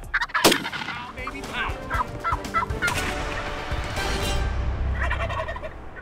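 Wild turkey gobblers gobbling repeatedly, with a sharp loud crack about half a second in and a low rumble near the end as the calls fade.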